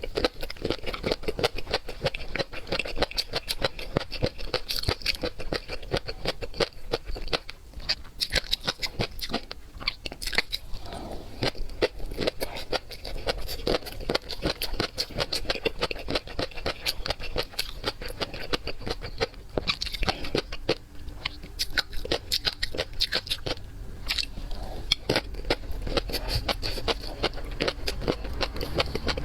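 Close-miked eating of seafood: continuous chewing and crunching made up of many rapid small clicks.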